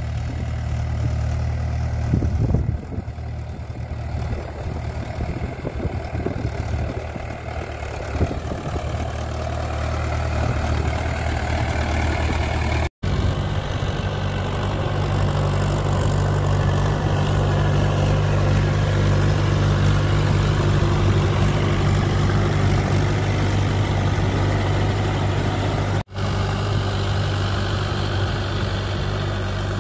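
Mahindra 575 DI tractor's 2730 cc four-cylinder diesel engine running steadily while the cage-wheeled tractor works a flooded paddy field. The sound cuts out briefly twice.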